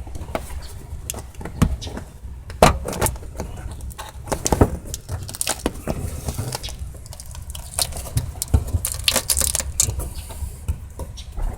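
Irregular sharp clicks, clacks and knocks of hand work with tools and parts, over a steady low rumble.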